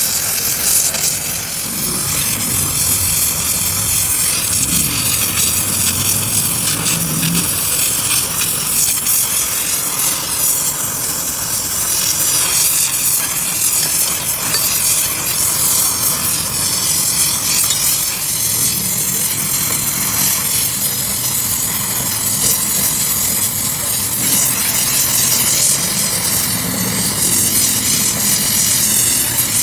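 Oxy-fuel cutting torch hissing steadily as its flame cuts into the metal hub of a gear.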